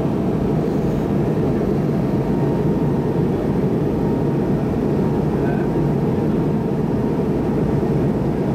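Steady low rumble of cabin noise inside an MD-88 airliner in flight on approach: airflow around the fuselage and its rear-mounted Pratt & Whitney JT8D engines.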